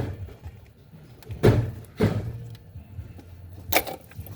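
Four sharp knocks and clunks, spaced irregularly, from parts being handled and a connector or line being pulled off in an engine bay.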